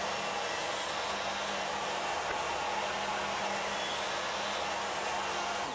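Stationary table saw running steadily, its blade spinning at speed while a shallow crosscut kerf is sawn across a beech bar on the sled. The saw is switched off at the very end and begins to wind down.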